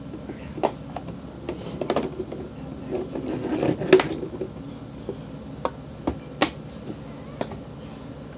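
Handling noise from opening the Sebo vacuum cleaner to get at its post-motor filter: scattered sharp clicks and knocks, with a short scraping stretch that ends in the loudest knock about four seconds in.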